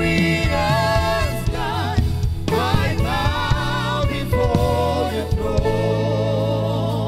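Live gospel worship song: a man and a woman sing a slow melody into microphones, holding long notes with vibrato, over a band with held bass notes.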